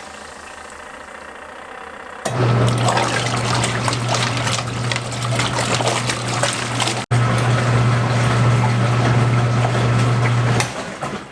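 DELLA portable washing machine in its wash cycle: the motor runs with a steady hum while water churns in the tub. It is paused for the first two seconds or so, starts up again, and stops near the end.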